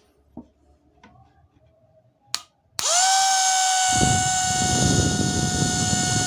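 A 12 V DC 775 motor switching on after a few faint clicks, spinning up fast to a steady high whine. About a second later a low rushing noise joins the whine.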